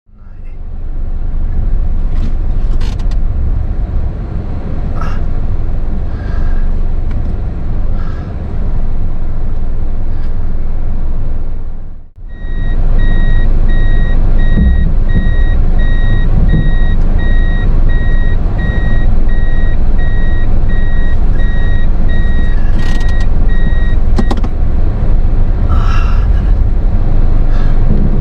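Car running with a heavy, steady low rumble. After a break about twelve seconds in, an electronic reverse warning beeps in a steady repeating pattern for about twelve seconds, then stops.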